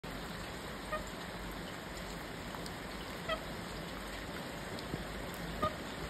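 Steady rain falling, with three short honk-like bird calls: about a second in, a little past halfway, and near the end.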